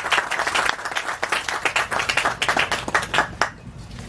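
A crowd applauding with many separate hand claps, dying away about three and a half seconds in.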